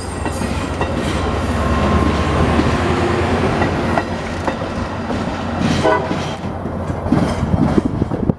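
Diesel commuter train rolling, with a steady deep engine rumble and wheels clicking over rail joints, the clicks coming faster near the end. A very short horn blip sounds about six seconds in.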